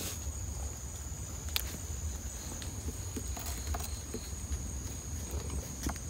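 Footsteps with scattered clicks and rustles, over a steady high-pitched chirring of crickets or other night insects.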